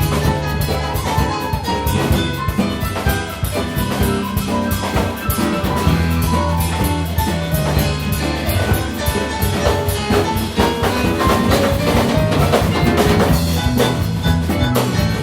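An instrumental ensemble playing an upbeat piece, with a drum kit keeping a steady beat under a bass line and melodic instruments.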